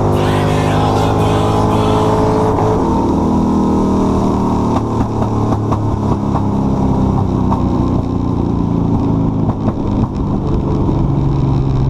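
A car engine running steadily, its pitch shifting a few times.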